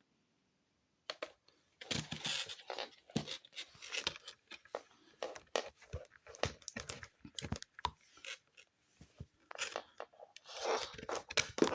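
Irregular close-up crackling, clicking and scraping, handling noise from the small speaker being held and worked, starting after about a second of silence.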